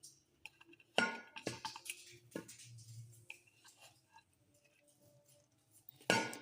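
Several clinks and knocks of a utensil against a cooking pot, loudest about a second in and again near the end, with smaller taps between.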